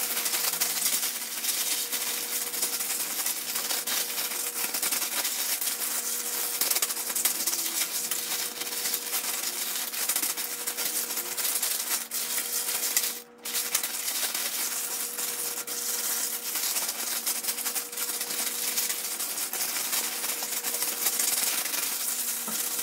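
Ice and salt water rattling and sloshing inside a zip-top plastic bag shaken by hand, a continuous clatter of ice against plastic, with a brief pause about halfway through. The bag is being shaken to freeze the ice cream mix sealed in a smaller bag inside.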